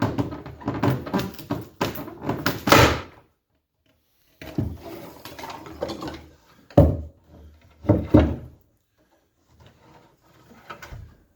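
Fiberglass boat console being wrenched loose from the hull: a quick run of knocks in the first three seconds, a stretch of scraping, then two heavy thumps about seven and eight seconds in, and a few faint knocks near the end.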